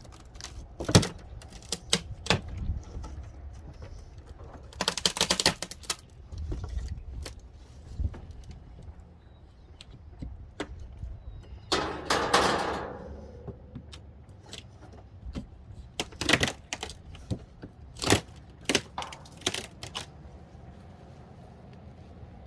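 Hand demolition of old wooden wall boards: scattered knocks and clicks as boards are pried and pulled loose, with a quick rattle of clicks about five seconds in and a scraping rasp around twelve seconds.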